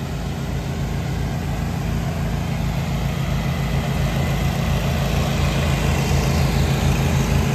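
Gas engine on a truck-mounted pressure-washing rig running steadily at a constant speed, slowly growing louder.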